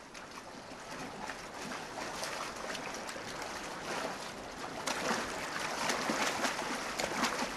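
Fast river current rushing, with the splashing of wildebeest swimming across it; the splashing grows louder about five seconds in.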